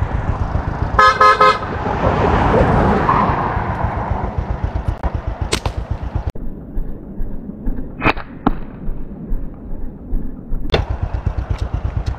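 A vehicle engine running on the move, with a steady low pulsing and rushing noise. A short horn honk sounds about a second in.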